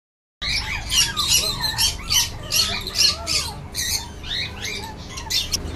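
Animal calls: many short, high chirps and squawks that rise and fall in quick succession, with noisy rustling bursts between them.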